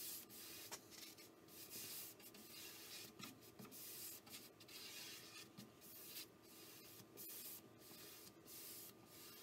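Faint, repeated swishes of a bristle brush stroking pigment-tinted shellac onto a mahogany shelf, about one or two strokes a second.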